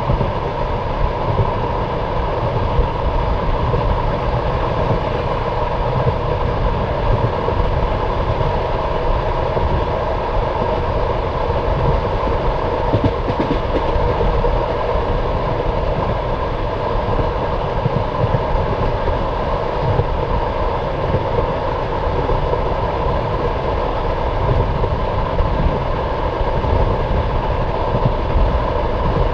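Passenger train carriage running along the track: a steady rumble of wheels on rails with some wheel clatter, heard from the carriage.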